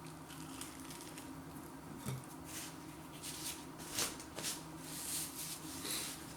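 Someone biting into and chewing a flaky-pastry cheese and onion pasty: faint crackles, clicks and mouth noises, clustered in the second half.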